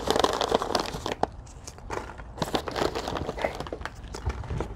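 Hands rummaging through styrofoam packing peanuts in a cardboard box, with crinkling plastic snack wrappers: a dense crackling rustle that comes in bursts, loudest in the first second and again around three seconds in.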